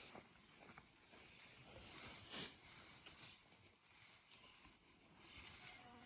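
Dry hay rustling and swishing as it is raked and handled, with a louder swish about two and a half seconds in.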